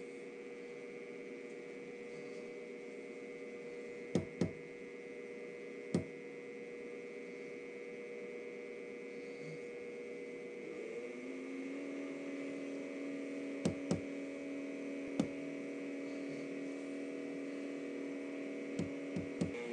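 Steady machine hum made of several steady tones, which shifts in pitch and grows slightly louder about halfway through. A few sharp taps or knocks come singly and in quick pairs.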